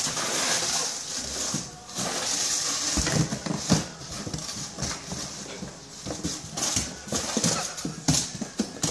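A cardboard box scraping and bumping along a concrete floor as a dog with its head stuck inside it pushes it around, with the irregular tapping of the dog's claws on the concrete.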